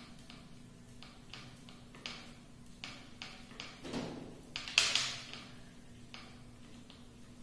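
Fingers handling a plastic wall-mounted soap dispenser bracket: a scattered series of small clicks and taps, a dull knock about four seconds in, then a louder, longer scrape.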